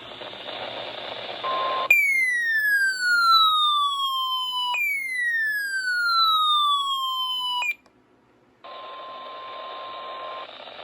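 Weather radio hiss with a short beep, then two falling electronic siren-like sweeps, each about three seconds long and cut off abruptly. After a second of silence the radio hiss returns, carrying a steady alert tone for about two seconds.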